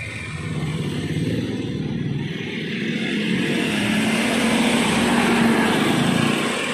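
A van driving past close by, its engine and tyre noise growing louder over several seconds, peaking about five seconds in, then starting to fade.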